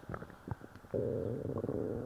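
A person's stomach and bowels gurgling after a laxative: short gurgles and pops, then about a second in a louder, drawn-out growl lasting about a second.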